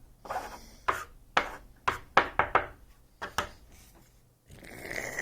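A run of sharp knocks and clicks, about two a second for some three seconds, then a steady rasping noise that starts near the end.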